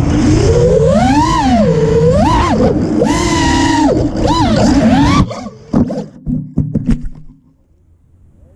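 FPV racing quadcopter's Lumenier 2207 2700kv brushless motors whining, the pitch rising and falling with each throttle punch. About five seconds in the motor sound cuts out abruptly, followed by a few sharp knocks and clatters, typical of a crash.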